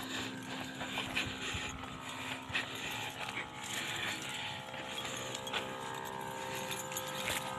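Knapsack sprayer spraying insecticide with a steady hum, over irregular crunching of dry leaves underfoot.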